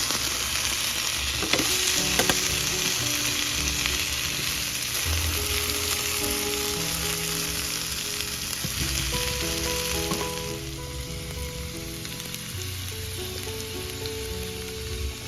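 Potatoes and onions frying in oil in a pan, a steady loud sizzle with a couple of sharp clicks about two seconds in. The sizzle's hiss drops off noticeably about ten seconds in and carries on more quietly.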